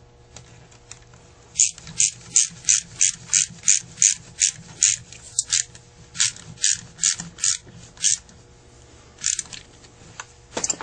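A hand tool fastening the housing onto a Carter AFB carburetor, giving a run of sharp, evenly spaced clicks about three a second for some six seconds, then a few more clicks near the end.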